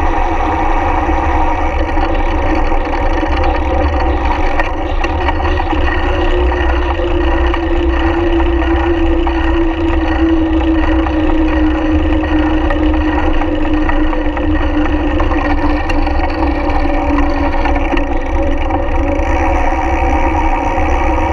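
Riding noise from a camera mounted on a moving bicycle's frame: constant low wind rumble on the microphone with a steady droning hum from the tyres and drivetrain on asphalt. One tone of the hum sinks slowly in pitch through the middle, as the road speed drops.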